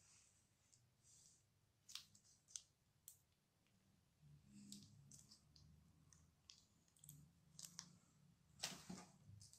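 Faint, scattered sticky clicks and squelches of a plastic piping bag being squeezed, pushing red slime out onto wet slime, with a louder, longer rustle near the end.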